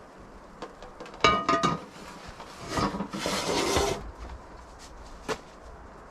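Metal cookware clinking with a brief ringing about a second in, followed by about a second of hissing rustle and a single knock near the end.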